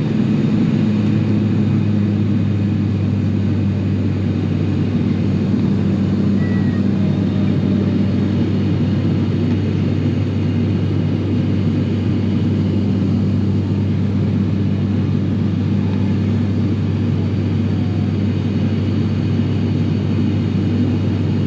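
Airliner engines droning, heard from inside the passenger cabin during the climb after take-off: a steady low hum with a strong deep tone and its octave above it, over an even rushing noise.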